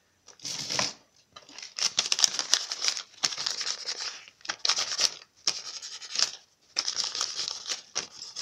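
Steel tape measure blade pulled out and run back into its case over and over, in about six rasping strokes with small clicks between them. Its mechanism has been freshly oiled to cure jamming and now runs freely.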